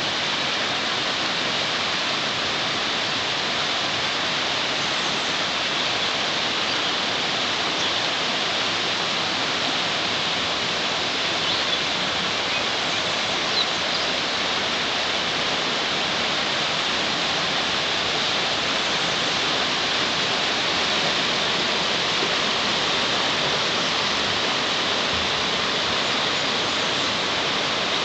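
Shallow river rushing steadily over rocky riffles and spilling past the edge of a low concrete crossing: an even, unbroken hiss of moving water.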